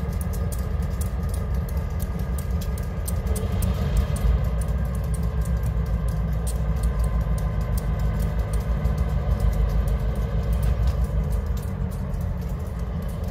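Great Lakes Central diesel locomotives idling: a steady low rumble with faint steady tones riding above it.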